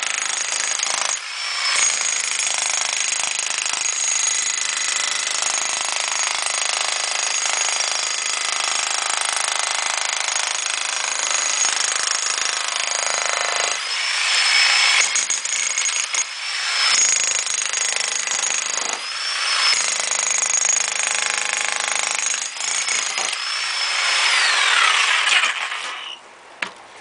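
Bosch GSH 11 VC electric demolition hammer chiselling out brick and mortar. It hammers continuously with a few brief pauses, then stops near the end with a falling whine.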